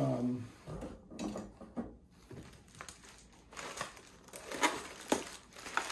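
Clear plastic packaging bag crinkling as it is handled and pulled open, in irregular short crackles that grow busier in the second half.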